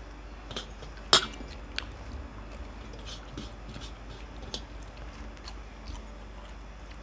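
Eating with the hands from steel plates: scattered small clicks and mouth sounds as fingers mix rice and curry and food is chewed, with one loud sharp click about a second in.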